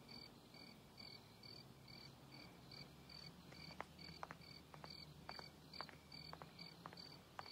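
Faint crickets chirping steadily, about two evenly spaced chirps a second, over a low steady hum, with a few faint ticks in the second half.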